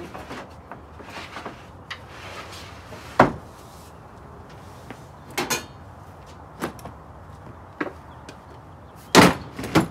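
Hard plastic RIDGID tool boxes being handled and set down on a plywood slide-out tray in a pickup bed: a string of single knocks and clunks, a loud one about three seconds in, smaller ones after it, and the loudest cluster near the end as a case is set onto the stack.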